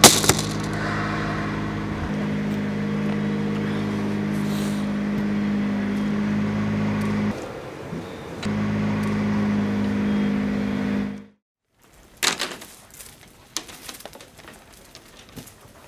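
Steady low mechanical hum with a sharp knock at the very start. The hum dips for about a second near the middle, then cuts off abruptly, followed by a sharp knock and a few faint clicks.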